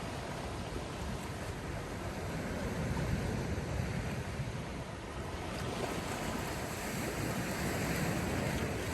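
Sea surf: waves washing in with a steady rush that swells twice, building from about halfway through to its loudest near the end.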